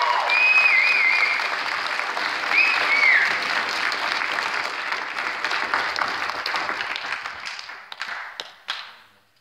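Audience applauding, with two short high cheers in the first few seconds; the applause dies away over the last couple of seconds into a few scattered last claps.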